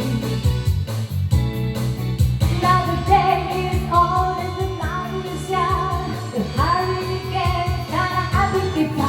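A woman singing wavering, held notes over a rock backing track with a steady beat.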